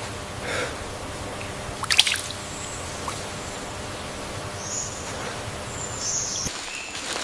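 Steady outdoor hiss, with a single sharp snap about two seconds in and a few brief high chirps later on.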